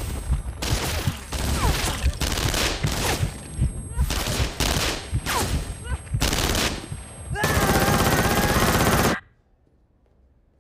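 Bursts of gunfire, shots coming roughly once a second with echoing tails, ending in a louder sustained burst with a wavering tone over it that cuts off suddenly about nine seconds in.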